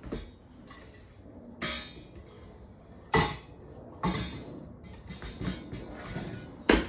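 A series of separate knocks and clunks, about half a dozen, with the loudest near the end, from tools and bicycle parts being handled and set down during work on a bike.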